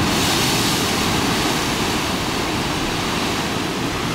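Strong wind buffeting the microphone with a heavy low rumble, over the steady rush and hiss of ocean surf breaking on the rocks.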